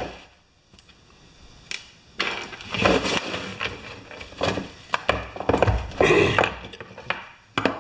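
Knocks and rubbing on a wooden workbench as a small pneumatic tire on a steel rim is handled and a rag wipes the bench top, starting about two seconds in.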